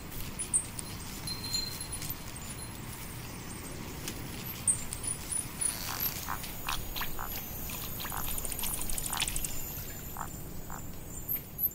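Pond nature ambience: frogs croaking in short, irregular calls that grow frequent about halfway through, with faint high chirps over a steady low background.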